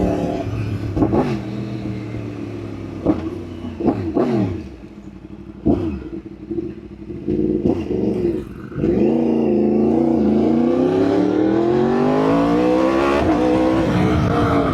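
Yamaha R1 inline-four engine under way: several quick throttle blips with the pitch jumping up and falling back, then a long pull with the pitch rising steadily for about four seconds, a sudden drop at a gear change, and the pitch climbing again.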